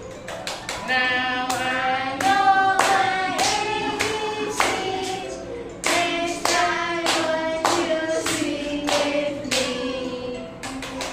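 A song: a voice singing a simple melody over a steady beat of sharp claps or taps, about two a second.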